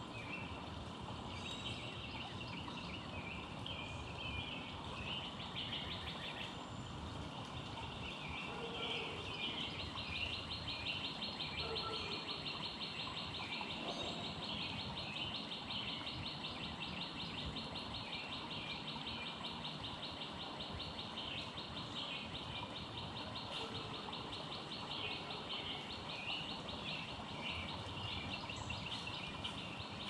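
Distant wild birds chirping and calling over a steady outdoor background hiss. From about a third of the way in, a fast, even trill holds without a break until near the end.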